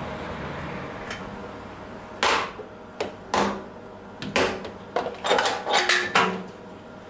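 A small soft-faced hammer tapping on a milling-machine flycutter's steel body, about ten light strikes at an irregular pace, coming closer together toward the end.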